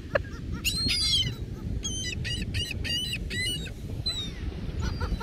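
Gulls calling: two calls about a second in, then a quick run of about six short, sharp calls, and a few fainter calls near the end.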